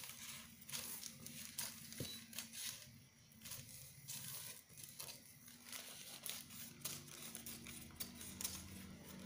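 Large dressmaker's shears snipping along a spiral line through thin pattern paper, a run of short, irregular cuts with the paper rustling as it is turned.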